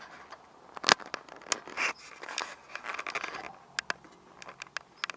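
Handling noises: irregular sharp clicks and knocks with short bursts of rustling and scraping, as things are picked up and moved about. The loudest knock comes about a second in.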